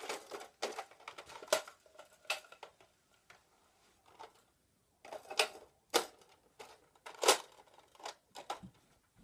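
Sharp plastic clicks and knocks of a Nerf Star Wars Stormtrooper blaster being loaded with foam darts, coming irregularly with a quieter pause midway.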